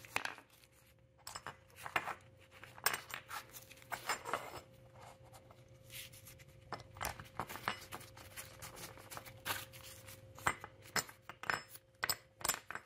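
Small, irregular metallic clicks and clinks of a metal seat hinge bracket and its bolts being handled and set in place by hand, over a faint steady hum.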